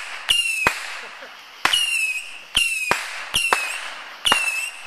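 A firework firing repeated whistling shots, about five in a row. Each one is a sharp crack followed by a short, slightly falling whistle and a fading hiss.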